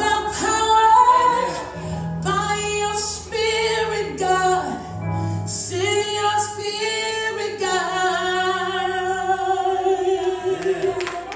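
Gospel song with a woman singing lead over low bass notes, the last phrase held as a long note.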